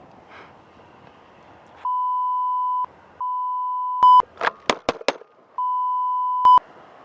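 A censor bleep: a steady beep tone sounding three times, each about a second long, blanking out the sound beneath it. Between the second and third beep comes a quick burst of loud sharp clicks, and faint outdoor noise runs before the first beep.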